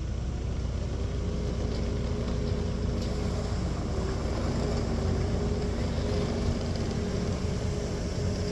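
New Holland C238 tracked skid steer loader's four-cylinder turbo diesel running steadily under work, with a thin steady whine above the engine note.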